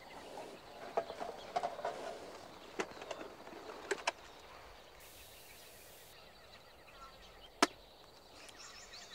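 Handling of a plastic camera-trap case: rustling in dry grass and a run of small clicks as the unit is taken off its stake and opened, then, after a quieter stretch, a single sharp click near the end.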